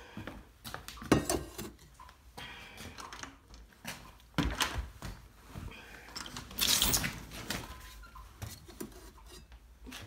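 Handling noise while a metal cooking pot of hot water is carried: scattered knocks, clinks and rustles, with a louder rustling burst about two-thirds of the way through.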